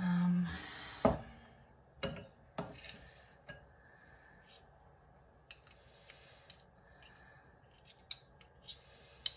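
Metal spoons clinking and scraping against a glass mixing bowl while a damp textured vegetable protein mixture is scooped and pressed into nugget shapes: scattered sharp clicks, the loudest about a second in, with softer scrapes between.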